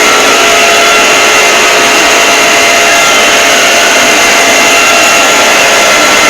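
Mock Emergency Alert System alarm, heavily distorted and clipped: several steady alarm tones layered over a dense noise at a constant, very loud level.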